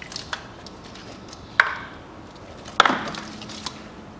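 Hand tools knocking against metal parts in a car's engine bay: a few light clicks, then two sharp knocks a little over a second apart, the second ringing briefly.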